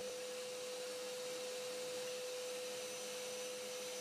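Table saw running with no cut in progress: a steady whine over a hiss.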